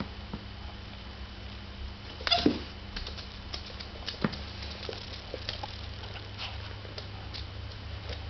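Scottish terrier puppy playing on a wooden floor: scattered light clicks and taps from claws and toys over a steady low hum, with one short, louder squeak about two seconds in.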